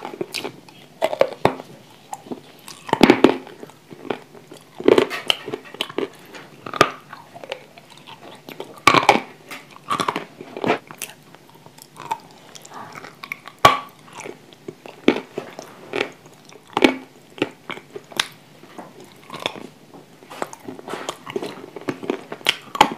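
A person biting and chewing chunks of edible clay close to a lapel microphone: sharp, irregular crunches as pieces snap off, with chewing between.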